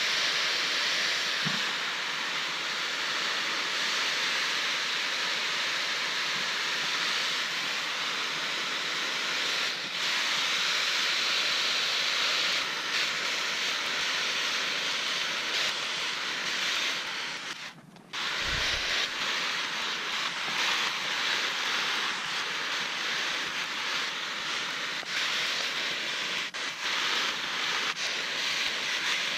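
Hose shower nozzle spraying water onto black plastic mulch film: a steady hiss of falling water that breaks off briefly about eighteen seconds in.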